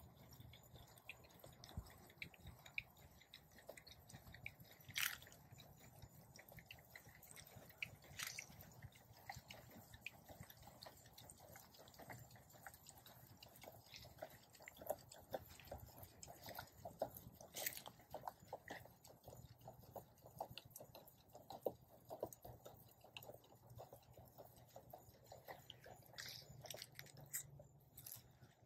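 Faint, irregular crackling of footsteps on dry pine straw mulch, with a few sharper clicks now and then.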